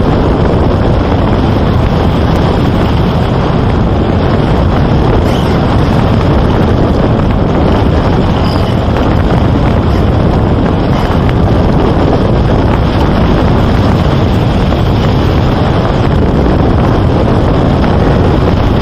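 Strong wind buffeting the microphone: a loud, steady rushing.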